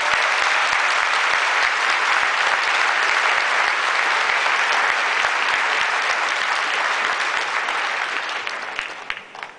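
Large audience applauding, a dense steady clapping that fades away near the end.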